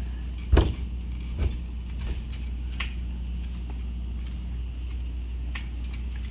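Two dull thumps on a trampoline, about half a second and a second and a half in, over a steady low rumble, with a few faint clicks later.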